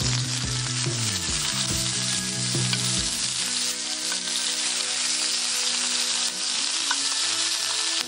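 Meat sizzling and frying steadily in a cast-iron frying pan, with background music under it.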